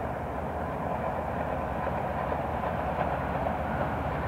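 Approaching BNSF double-stack intermodal freight train: diesel locomotives running with a steady rumble of engines and rolling wheels, slowly growing louder as it nears.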